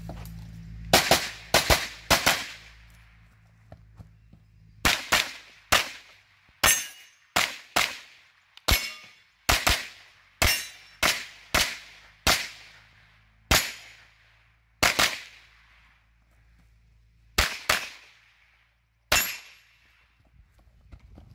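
Rapid gunshots fired mostly in quick pairs, about two dozen in all, in bursts separated by short pauses as the shooter moves between target arrays.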